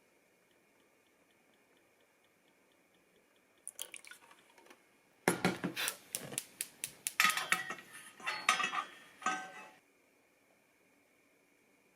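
Dishes and utensils being handled: a few light clicks, then about five seconds in a dense run of clinks and clatter lasting about four seconds.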